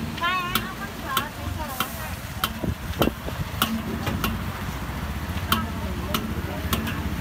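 Metal ladle stirring sweet potato balls in a steel wok of hot oil, clinking against the wok about every half second over the sizzle of deep-frying.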